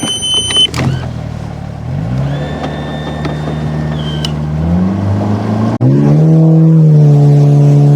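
Boat motor running and throttling up in two steps, its pitch rising about two seconds in and again near six seconds, then held steady and loud at the higher speed. A short electronic beep sounds at the very start.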